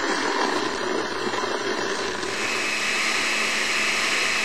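Countertop blender running, crushing ice and whole cranberries in juice and yogurt. The choppy, uneven churning settles about halfway through into a steady whine as the mixture turns smooth.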